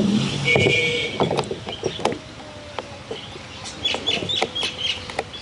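Scattered clicks and knocks of chainsaw parts being handled while the guide bar and chain are fitted, with birds chirping in the background.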